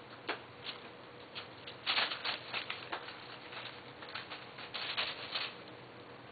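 Wrapping paper and tissue paper crinkling and rustling in irregular bursts as kittens play in it, busiest about two seconds in and again around five seconds.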